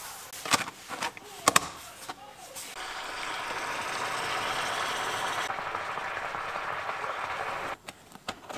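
A plastic lid clacking shut on a self-heating hot pot box, two sharp clicks, then a steady hiss as the heating pack reacts with water and steam escapes from the closed box. The hiss cuts off suddenly near the end.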